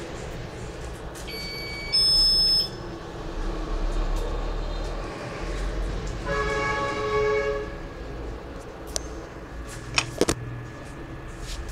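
A high electronic beep about a second in, loudest for half a second, then a lower horn-like tone lasting about a second and a half midway, and a few sharp clicks near the end, over a low steady rumble.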